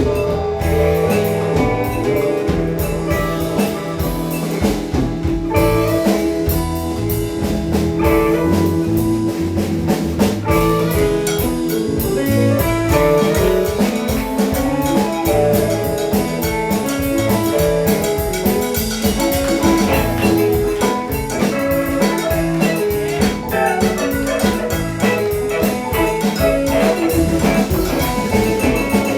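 Live band playing a rock jam: drum kit keeping a steady beat under bass and guitar lines, with a held note about five seconds in.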